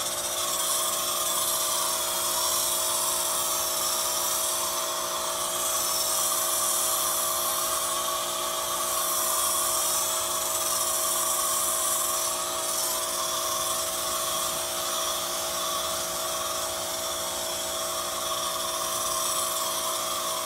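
Pressure washer running steadily with a foam cannon spraying: a constant motor-and-pump whine over the hiss of the foam spray.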